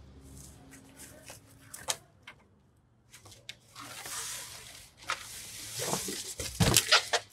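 Handling noises as an item is unpacked: scattered light knocks and clicks, then rustling that grows louder in the last few seconds.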